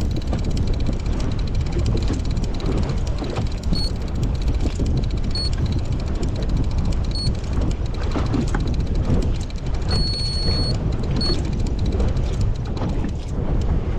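Wind buffeting the microphone with a steady low rumble, broken by a few short high beeps and one longer beep about ten seconds in.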